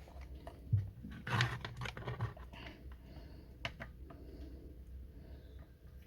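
Hands connecting jumper wires to an engine control panel: scattered light clicks and taps, with a short rustle and scrape of wire and connectors about a second in.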